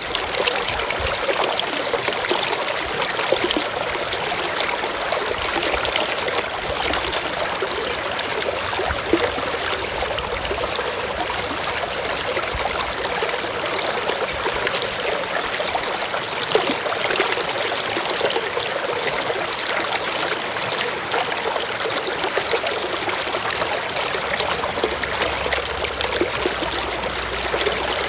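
Running water trickling steadily in an even, light rush with little deep sound, as from a small stream or flow of water.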